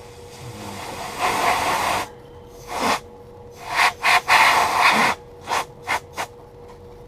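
Can of compressed air held upside down, spraying liquid propellant in hissing bursts to freeze freshly applied hot glue: a long spray about a second in, several more in the middle, then three short puffs near the end.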